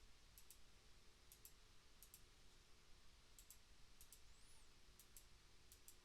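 Faint computer mouse clicks, many in quick pairs, spaced irregularly against near silence.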